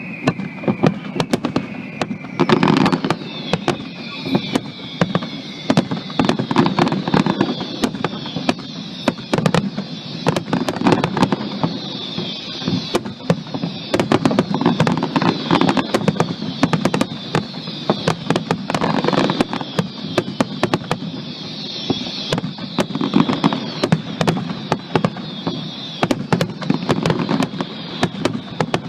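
Fireworks display going off in rapid succession: dense crackling and bangs over a low rumble, with many high whistles gliding down in pitch.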